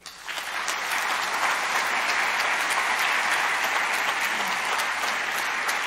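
Large audience applauding in a big hall: dense, steady clapping that starts suddenly and keeps going.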